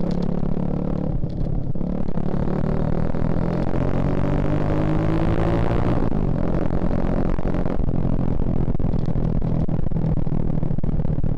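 Single-cylinder four-stroke engine of a 2011 Suzuki Shogun Axelo R motorcycle under way, its note rising steadily as it accelerates for a few seconds, with rushing wind building. About six seconds in the climb stops and the engine runs on at a steady pitch.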